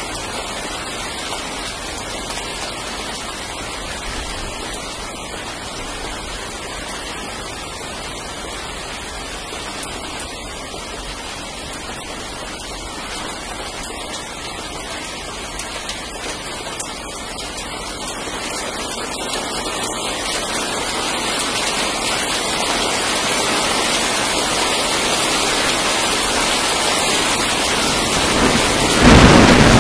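Steady rain falling, growing heavier from about two-thirds of the way in. Near the end a loud clap of thunder breaks in.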